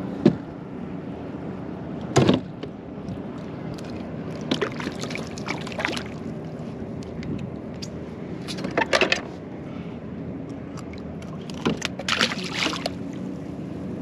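Water lapping and sloshing against a fishing kayak's hull, broken several times by short splashes and knocks as fishing gear is handled at the side of the boat.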